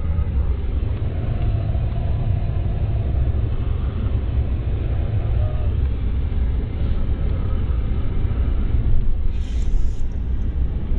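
Vehicle driving over snow, a steady low rumble of engine and tyres. Briefly, about nine seconds in, a short bump or rattle rises above it.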